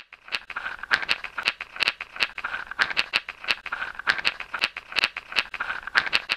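A rattle shaken in a steady rhythm: sharp, dry clicks a few times a second, starting suddenly out of silence.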